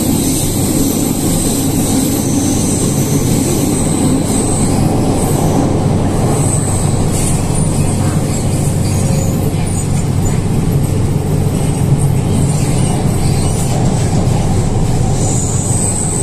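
Inside the car of an MTR K-train running through a tunnel: a steady rumble of wheels on rail, with a thin high whine that fades in the middle and comes back strongly near the end.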